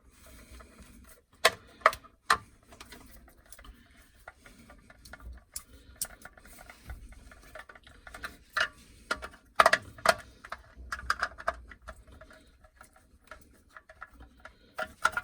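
Irregular small clicks and light knocks of a hand screwdriver and a plastic wall-socket faceplate as the socket's fixing screw is driven into the wall.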